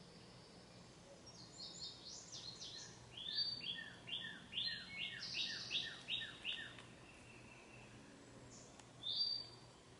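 A songbird singing: a long phrase of about fifteen short notes, each sliding downward, the series stepping lower in pitch as it goes, then a short phrase near the end.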